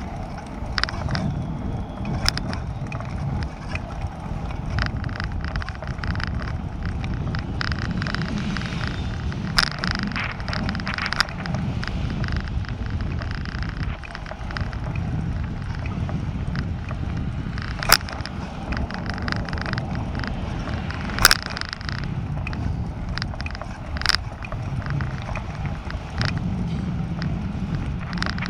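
Bicycle ridden over a brick-paved cycle path, heard from a camera on the bike: a steady low rumble of tyres and motion, broken by short sharp clicks and rattles as it goes over bumps and paving joints, two of them loud in the second half.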